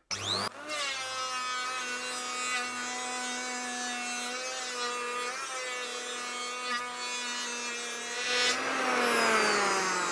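Bosch GHO 26-82 D electric hand planer starting with a short rising whine, then running at a steady pitch as it planes about 2 mm off the edge of a wooden door. Near the end it gets louder and its pitch falls.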